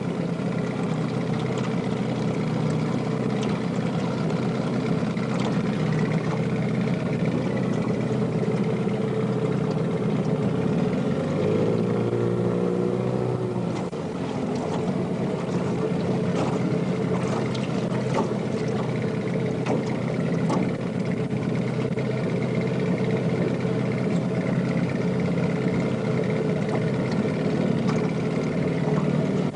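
A boat's engine running steadily at an even speed. A brief higher pitched sound joins it about twelve seconds in.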